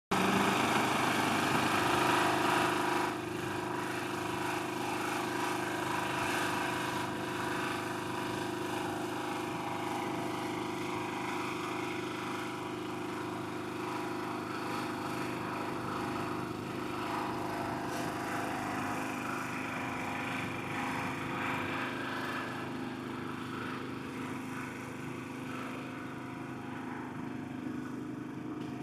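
Small engine of road crack-repair machinery running steadily at a constant speed, a little louder for the first three seconds.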